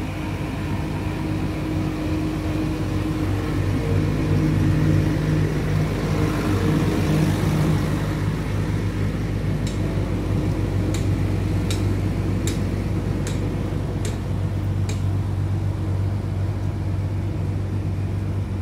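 Large engine of the well-drilling machinery running steadily, with a hum that swells a little about a quarter of the way in. Midway a series of about seven sharp clicks comes roughly one every three-quarters of a second.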